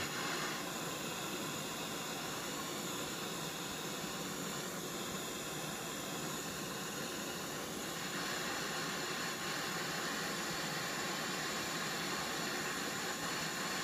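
Handheld propane torch burning with a steady hiss, its flame heating the tip of a steel ultrasonic drill horn to melt silver solder. The hiss grows a little louder about eight seconds in.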